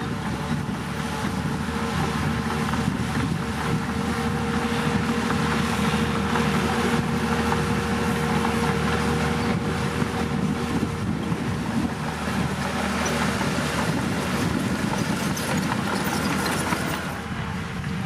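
Caterpillar bulldozer's diesel engine running steadily at working revs, an even, continuous hum.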